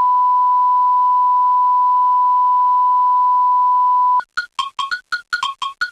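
Steady 1 kHz test tone accompanying a countdown leader, cutting off sharply about four seconds in. A fast run of short plinked keyboard notes follows, the start of an intro jingle.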